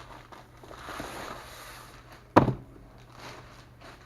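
Rustling and sliding as the Lego Saturn V kit box is handled. A single sharp knock about two and a half seconds in is the loudest sound.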